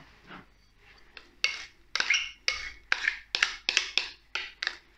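Spatula scraping thick chocolate mousse out of a mixing bowl: a run of short scrapes against the bowl, about three or four a second, starting about a second and a half in.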